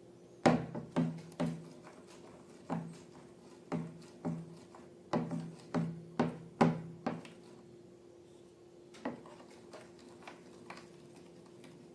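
Irregular light knocks and taps, about a dozen, bunched in the first seven seconds and sparser after, over a faint steady hum.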